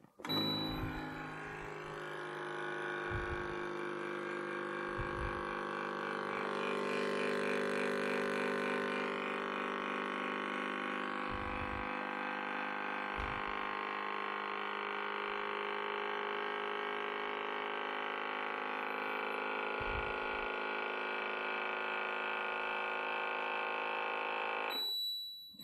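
Vidia BL-001 vacuum blender's built-in vacuum pump running with a steady hum, drawing the air out of the sealed jar. It starts with a brief beep, and near the end the pump cuts off and a high beep sounds.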